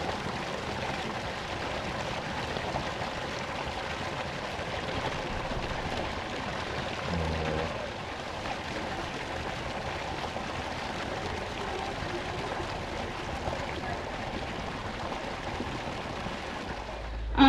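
Steady rush and lapping of water in a sea lion pool as a sea lion swims.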